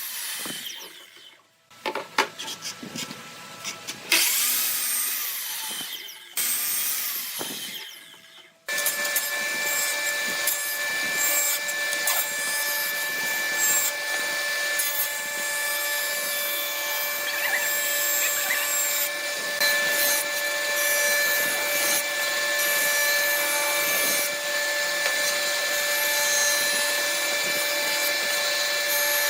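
Power tools working wood. There are several short runs with pauses over the first eight or nine seconds, then a tool runs steadily with an even whine for the rest.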